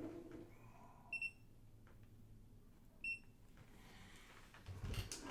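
Digital multimeter beeping twice while measuring a capacitor: two short, high beeps about two seconds apart, with a few handling clicks near the end.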